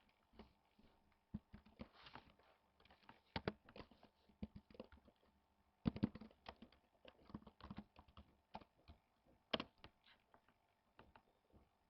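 Faint, irregular clicking and tapping of a computer keyboard, in uneven bursts of keystrokes with short pauses between.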